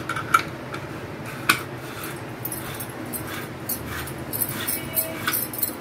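Stainless-steel murukku press being closed: a string of sharp metal clicks and taps as the handle and plunger top are fitted and locked onto the dough-filled cylinder, thickest in the second half.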